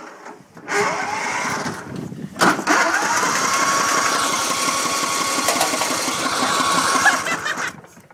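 A motor runs in a short burst, then again for about five seconds. Its whine rises and then holds steady.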